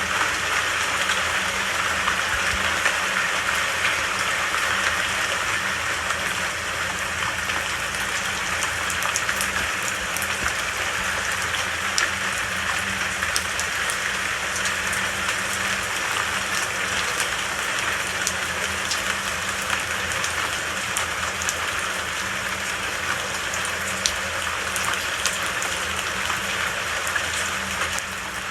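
Steady rain, a dense even hiss with scattered sharper drop ticks.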